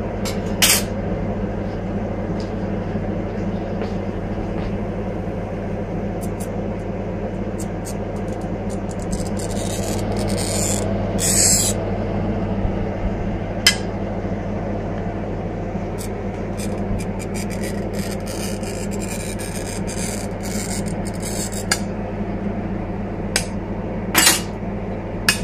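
A glass cutter scoring tinted mirror glass, with scratchy rasping strokes about ten seconds in and a few sharp clicks of the glass, over a steady low hum.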